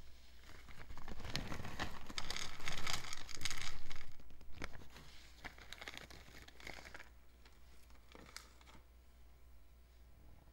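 A plastic bag crinkling as it is handled, with small plaster miniature bricks clicking and tumbling onto a bamboo tray. The busiest stretch runs from about one to four seconds in, with a few scattered clicks afterwards.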